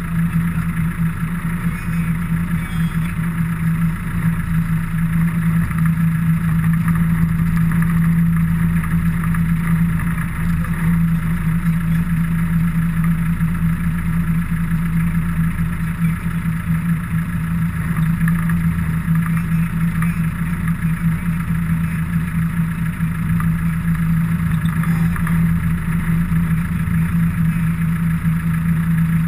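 Steady low hum with a rough hiss over it, unchanging throughout.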